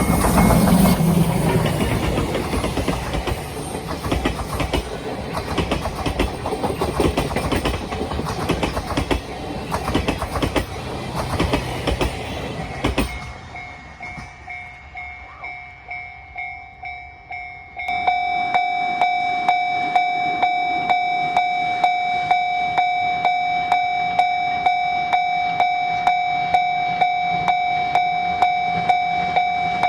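The C57 180 steam train with its 12-series coaches passing close by, its wheels clattering over the rail joints, with a level-crossing warning bell ringing underneath. About 13 s in the train noise cuts off. From about 18 s the level-crossing bell rings loud and alone, a steady two-tone alarm struck at an even rhythm.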